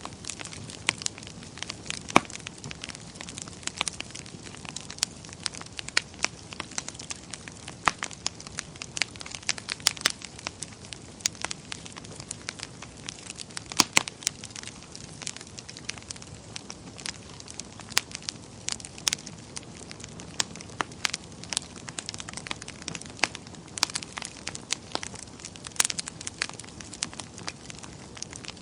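Wood fire burning in a fireplace, crackling steadily with irregular sharp pops over a low hiss, a few pops louder than the rest.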